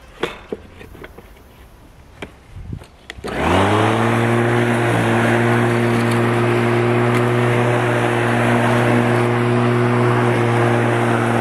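A few clicks and knocks, then the Bosch Rotak 34R corded mower's 1300 W electric motor and steel blade switched on, spinning up in about half a second to a steady high hum, and running steadily on.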